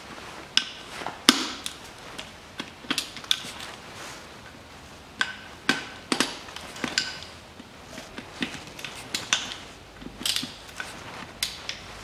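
Socket wrench working the bolts of a five-speed manual gearbox's rear cover: irregular metallic clicks and taps, a few with a short ring as the tool and bolts knock against the case.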